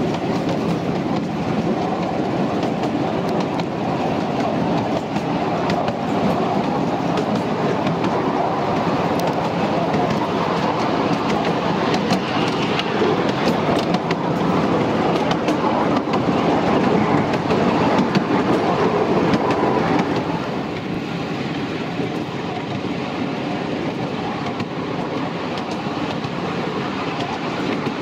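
Miniature railway train running along the track, heard from on board an open passenger carriage: a steady rumble of wheels on rail with small scattered ticks, easing slightly in loudness about two-thirds of the way through.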